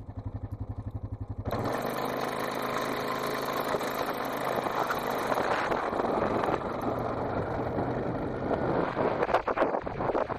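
Vehicle engine running while driving, with an even low pulsing for the first second and a half, then louder, denser driving noise over a steady hum.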